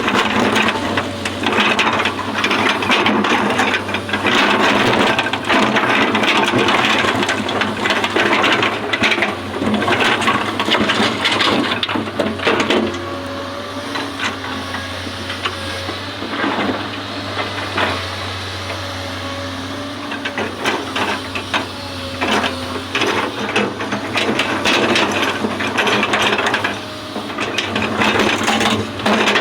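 Excavator at work: its diesel engine running steadily with a hydraulic whine that comes and goes, over dense, rapid rattling and clanking of the machine.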